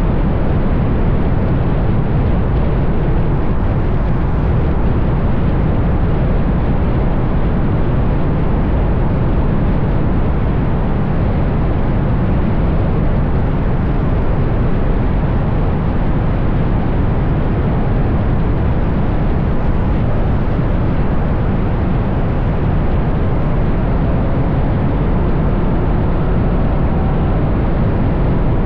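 Steady rush of wind and tyre noise from a car cruising at highway speed, buffeting a camera mounted on the car's outside. It is dense in the low end and unchanging throughout.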